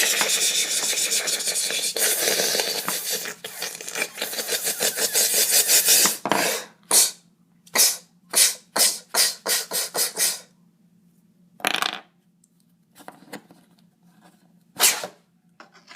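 Toys being slapped and rubbed against each other: a dense flurry of rapid scraping slaps for about six seconds, then about ten separate slaps roughly two a second, and two more single slaps a few seconds apart.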